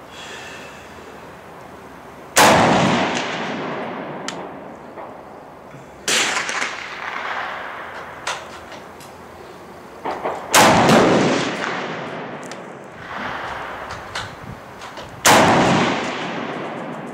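Scoped rifle fired from a bipod: four loud shots spaced about four seconds apart, each trailing off in a long echo across the range. A fainter shot comes between the third and fourth.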